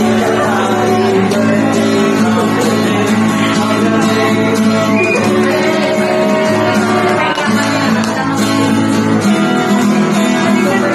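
Acoustic guitar strummed live, with singing over it.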